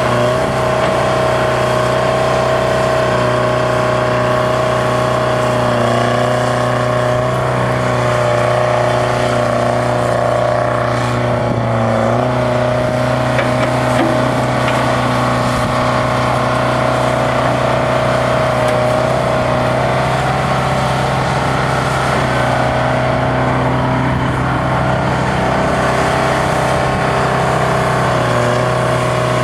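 Bucyrus Erie 20-H excavator's Detroit Diesel 4-71 two-stroke diesel running steadily under working load. Its pitch sags briefly a few times as it digs and swings.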